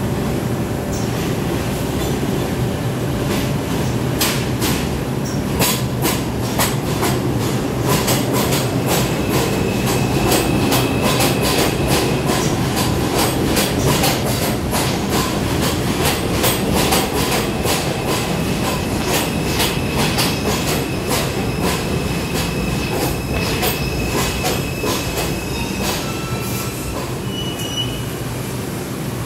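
R142 subway train pulling into a station and slowing to a stop: a steady rumble with rapid clicks of wheels over rail joints, and a faint high whine. The clicking thins out as the train stops.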